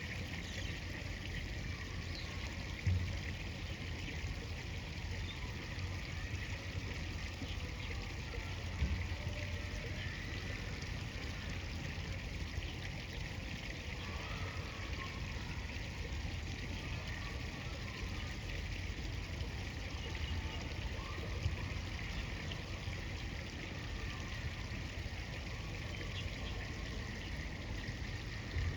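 River water flowing and trickling steadily, with two brief low thumps about three and nine seconds in.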